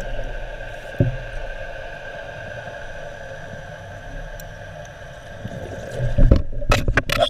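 Underwater ambience of a swimming pool heard through an action camera's waterproof housing: a steady muffled hum with a faint higher tone over it and a single knock about a second in. Near the end come several loud splashes and knocks as the camera breaks through the surface.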